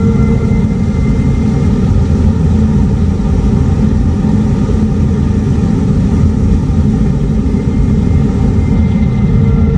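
Hyundai IONIQ 5's vehicle approach warning sound (VESS), heard from the speaker in the front trunk as a steady low electronic rumble. Its higher sustained tones fade out about a second and a half in and come back faintly near the end.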